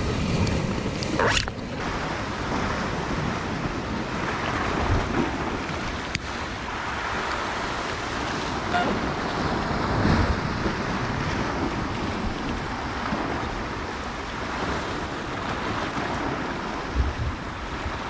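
Sea waves washing against shore rocks, a steady rushing that swells and falls every few seconds, with wind buffeting the microphone.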